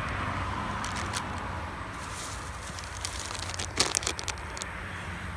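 Plastic soft-bait packaging crinkling as it is handled, in a few short crackly bursts, the loudest about four seconds in, over a steady low hum.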